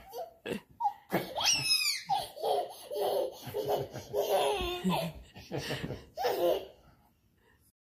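A young child laughing in repeated short bursts, with a high squeal about a second and a half in, while being caught in a play chase. The sound cuts off abruptly near the end.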